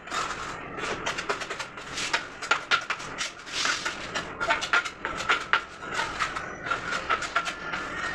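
A trowel handle knocking on a large floor tile again and again, several irregular knocks a second, bedding the tile down into its cement-sand mortar until it sits level.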